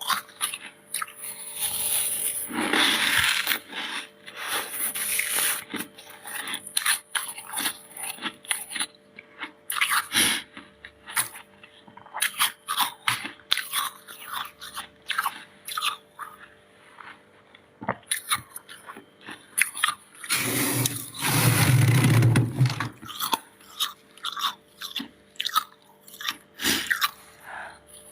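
Freezer frost being bitten and chewed close to the microphone: many sharp, crisp crunches and crackles, with one louder, longer crunch about two-thirds of the way through.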